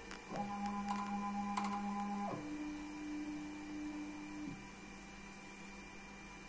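The electric drive of a desktop injection moulding machine whines at a steady pitch for about two seconds, then drops to a lower steady pitch for about two seconds more and stops, leaving a faint electrical hum. With the mould held closed, this is the injection stroke followed by the holding stage of the cycle.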